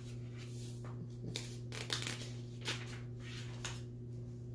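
Paper rustling, a handful of short dry rustles as cards or book pages are handled, over a steady low hum.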